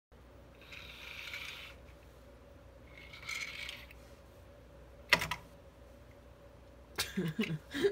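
Small 3D-printed plastic turtles being handled on a workbench: two brief soft scraping sounds, a sharp click about five seconds in, then a cluster of clicks and short squeaks near the end as their shells are pressed.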